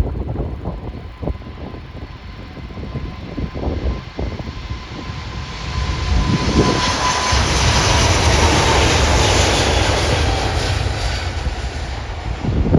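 Emirates Airbus A380 with four GP7200 turbofan engines, its jet noise swelling to a loud rumbling roar with a high hiss about halfway through, then fading as it passes, over some wind buffeting on the microphone.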